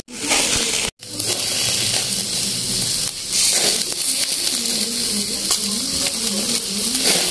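Whole chicken grilling over a wood fire: fat dripping from the bird sizzles and crackles as it catches on the flames and embers, a steady hissing noise. The sound cuts out briefly twice in the first second.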